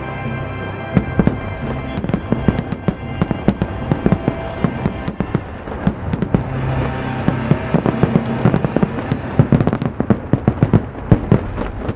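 Aerial fireworks bursting in quick succession, a dense run of sharp bangs and crackles that come thickest near the end, over the show's music.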